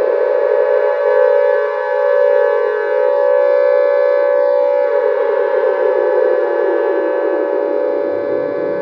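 A 'Great Mother Megaphone' creature sound effect: a loud, sustained siren-like drone rich in overtones. It holds its main pitch while a lower tone slides slowly downward.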